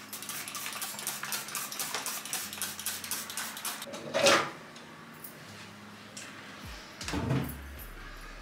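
Household handling sounds: a run of quick scratchy strokes for about four seconds, then a sharp clatter a little after halfway and a dull knock near the end.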